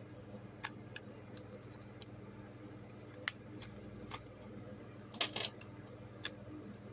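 Light, scattered clicks and ticks of a screwdriver taking screws out of a monitor's plastic case, with a louder double clack about five seconds in, over a faint steady hum.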